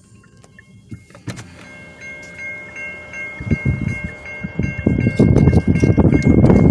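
Railroad crossing warning bell ringing in a fast, steady repeat, coming in clearly about two seconds in, while the gates are down with no train: the crossing signal is malfunctioning. A loud, irregular low rumble builds under it in the second half.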